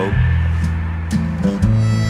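Background music: a country-western cowboy song, with guitar and bass playing between sung lines.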